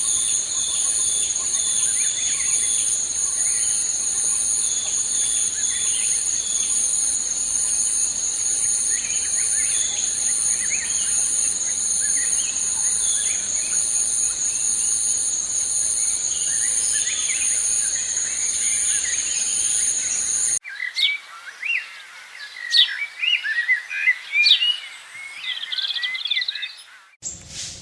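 Insects droning in steady, high, pulsing bands under scattered bird chirps. About two-thirds of the way in the drone cuts off suddenly, leaving only birds chirping, sharper and louder.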